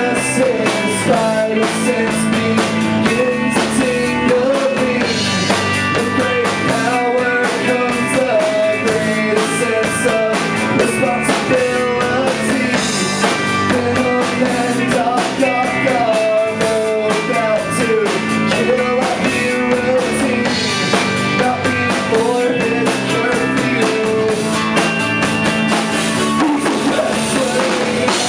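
Rock band playing live, with a drum kit and electric guitars, and a lead melody wavering above them.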